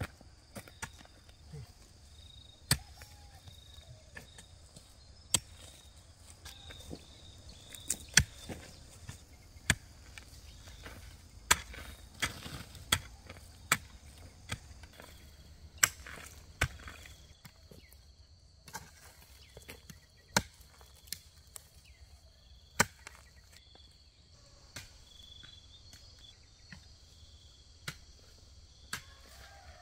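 A hand tool chopping with sharp, irregular strikes, one every one to three seconds. Insects chirp steadily behind it.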